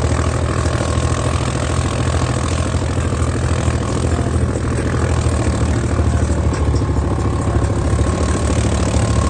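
ATV engine running steadily under throttle as the quad churns through deep pond water, with the splash and wash of the water around it.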